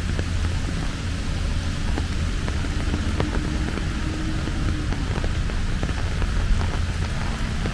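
Steady rain falling: a constant hiss with scattered sharp ticks of individual drops, over a low rumble.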